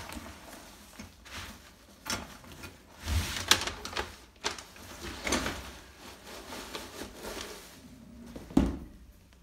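Cardboard box being tipped and emptied of plastic-wrapped cube-organiser panels: irregular scraping, rustling and knocks of cardboard and plastic on a tiled floor, with the loudest thump near the end.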